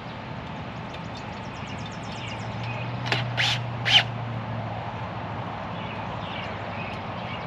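Bird calls: three short, harsh calls in quick succession about three to four seconds in, over a steady low hum.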